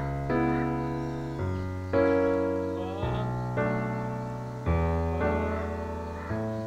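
Background piano music: soft chords struck about every second and a half, each ringing out and fading before the next.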